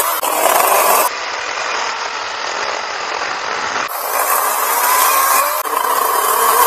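Badger 40V brushless cordless chainsaw running with its 16-inch bar and chain cutting through small downed limbs, a steady motor whine over chain rattle. It gets louder in the first second and again from about four seconds in.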